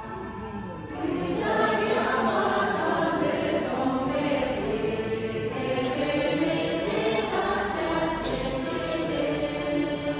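A group of voices singing a song together, getting louder about a second in.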